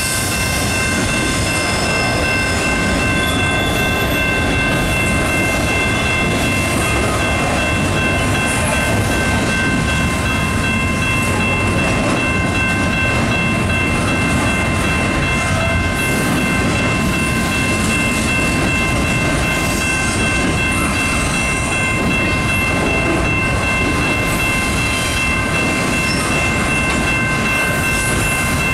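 Double-stack intermodal freight train rolling steadily past, its wheels rumbling and clattering over the rails. A level-crossing bell rings without a break over the top of it, heard as several steady high tones.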